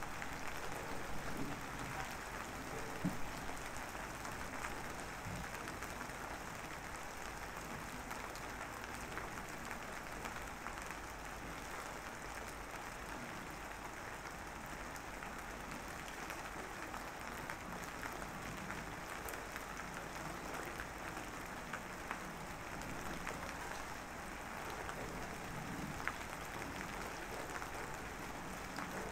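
A mixing stick scraping around the inside of a plastic measuring cup as epoxy resin is stirred, a steady scratchy noise with a few sharper clicks near the start.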